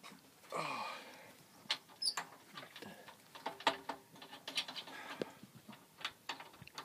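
Scattered light clicks and taps of telescope hardware being handled as the upper tube assembly of an Orion XX14g truss Dobsonian is fitted and adjusted, with a brief louder sound about half a second in.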